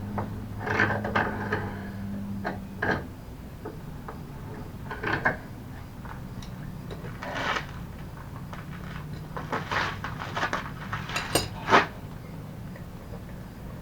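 Irregular metallic clinks, taps and knocks of hand tools working on metal parts of a mobility scooter. A low hum runs under the first three seconds, then stops.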